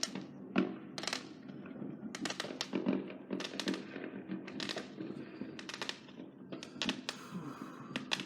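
Fireworks going off over and over: irregular sharp bangs and pops, with a hissing crackle near the end.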